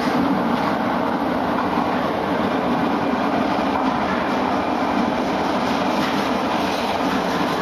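Toei Shinjuku Line subway train approaching through the tunnel and running into an underground station: a steady rumble of steel wheels on the rails with some clickety-clack.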